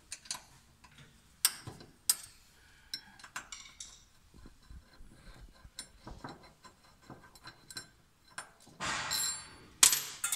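Irregular light metallic ticks and clinks of a hex key working the bolts of a brass mounting bar over a pillow-block bearing, with a louder clatter near the end.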